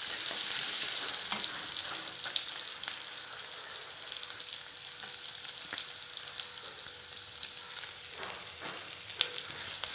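Chopped onion and crushed garlic sizzling in sesame oil in a pan, with scattered light clicks of stirring. The sizzle eases slightly over the seconds.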